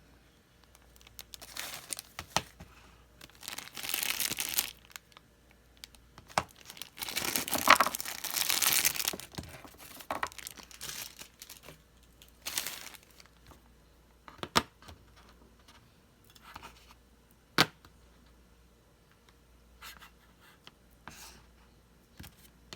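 Packaging being torn open and crinkled by hand in irregular spells, loudest about halfway through. A few single sharp clicks follow later on.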